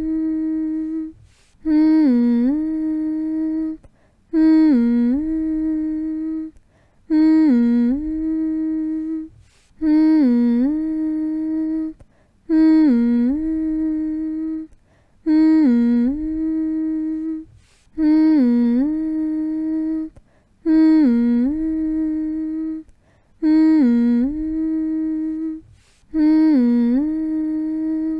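A person humming one long held note over and over: each hum opens with a short dip in pitch, then holds steady for about two seconds before a brief pause, repeating evenly about every two and a half seconds.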